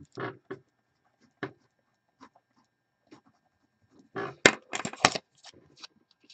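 Light desk handling noises of a pen and a sticky note: scattered soft clicks, then a short cluster of sharp, scratchy strokes about four seconds in.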